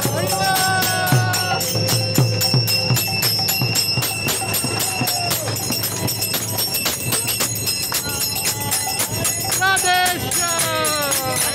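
Kirtan: a group of voices chanting over a steady, rapid beat of karatalas (small brass hand cymbals). A mridanga drum thumps along under them for the first few seconds.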